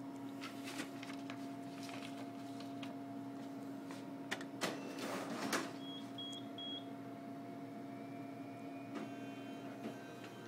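Photocopier standing by with a steady hum, with scattered clicks and a brief louder rustle about halfway through. About six seconds in, its control panel gives three short high beeps.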